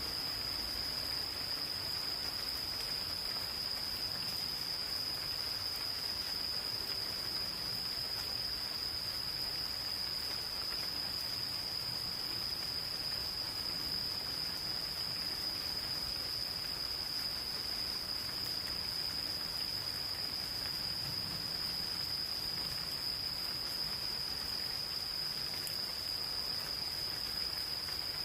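Insects calling in one continuous high-pitched trill that holds a steady pitch, over the soft even hiss of gentle rain.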